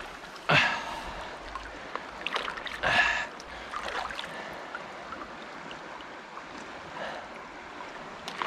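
Shallow river water running, with two louder splashing, sloshing bursts about half a second and three seconds in as a landing net holding a freshly caught fish is moved in the water.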